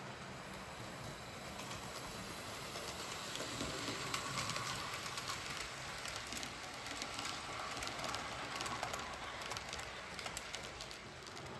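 A model freight train's wheels rolling past on the track: a steady rumble with rapid clicking, loudest about four seconds in as the cars pass close.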